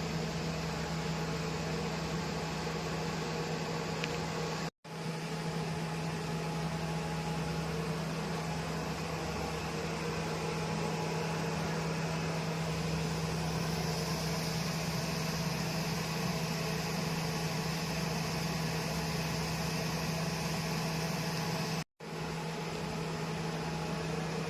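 Steady hum and fan-like rush of a cooling treatment machine running, with a strong low tone. The sound cuts out abruptly for an instant twice.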